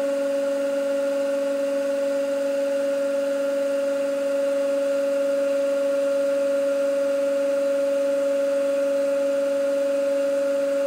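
Hydraulic press pump and motor running with a steady, constant-pitch whine while the ram presses down under rising load. It gets slightly louder about four seconds in.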